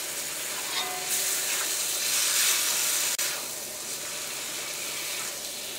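Chicken pieces in oil and masala sizzling in a black kadai on a high gas flame while a spatula stirs and turns them. The sizzle grows louder about a second in and eases off after about three seconds.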